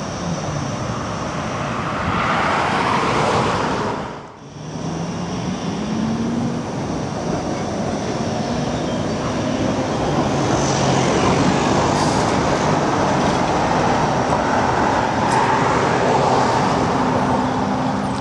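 Articulated low-floor tram running on the rails and pulling away round a turning loop: steady rumble of wheels on track with a motor hum that rises in pitch and then holds. The sound drops out briefly about four seconds in.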